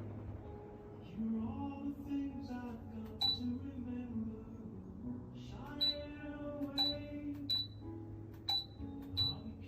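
Background music with sustained notes over a steady bass, punctuated by a bright ringing ping about six times in the second half.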